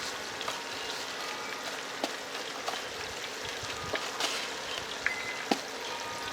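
Breaded chicken hot dogs deep-frying in hot oil: a steady sizzle with scattered sharp pops and crackles.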